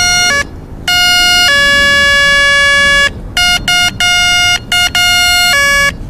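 Electronic bicycle horn sounding its first (original) tone: a loud electronic beeping that switches between two pitches. It holds one long note, then breaks into a quick string of short beeps that stop just before the end.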